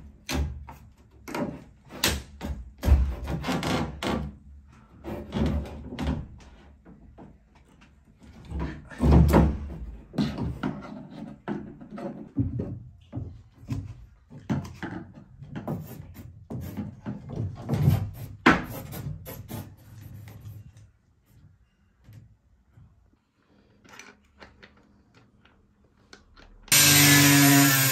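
Wooden door-frame trim being pried and pulled loose by hand and with a screwdriver: irregular creaks, scrapes and knocks of wood. About a second before the end, an angle grinder fitted with a diamond blade starts up with a loud, steady whine.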